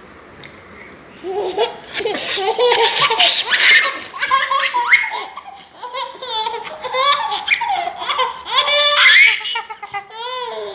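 A baby laughing hard in repeated runs of high-pitched belly laughs, starting about a second in and going on with short breaks for breath.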